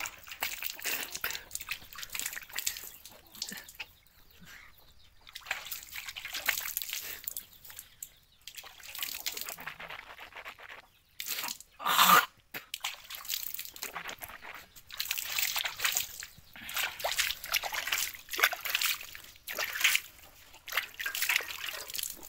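Water scooped by hand from a pot and splashed in washing, in irregular sloshing splashes with short pauses, the loudest splash about twelve seconds in.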